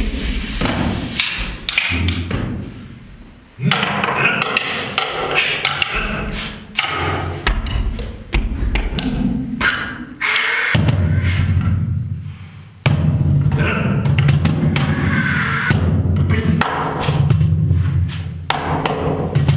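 Improvised hand percussion: knocks and thumps on a cajón and other small percussion, with some rattling. Sustained low notes join about halfway through.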